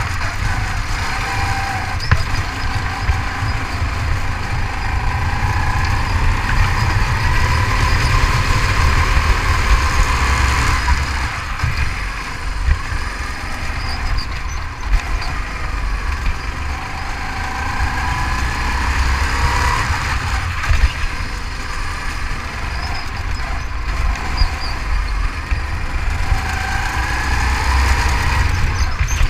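Go-kart engine running under throttle, its pitch rising and falling again and again as the kart speeds up and slows for the corners, over a strong low rumble.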